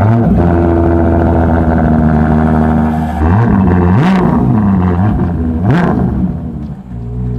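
Ferrari Monza SP1's 6.5-litre V12 starting with a sudden loud catch and idling steadily. About three seconds in it is blipped three times, the revs rising and falling, then it drops back to a quieter idle near the end.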